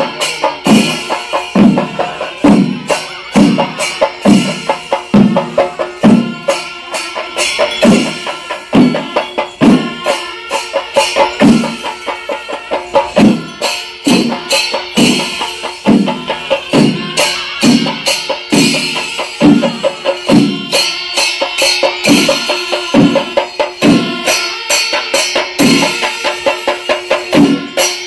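Chenda melam: a large ensemble of chenda drums beaten with sticks in a steady, driving beat, with brass ilathalam hand cymbals clashing along in time.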